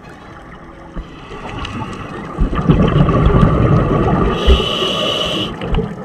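Scuba diver's exhaled bubbles from the regulator, heard underwater as a loud, noisy rumble that builds about a second in and runs for roughly three seconds, with a brief high-pitched tone near the end.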